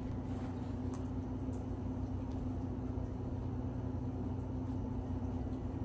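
Steady hum of an air conditioner running, with a constant low drone and a faint click about a second in.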